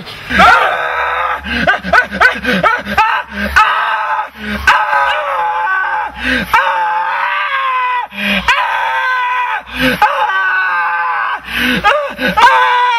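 A person screaming in long, high-pitched, anguished cries that run on almost without pause, broken by many short sharp sounds.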